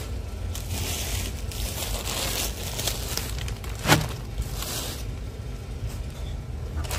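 Plastic packaging of a new hydraulic cylinder seal kit crinkling as it is handled and laid on the workbench, with one sharp tap about four seconds in, over a steady low hum.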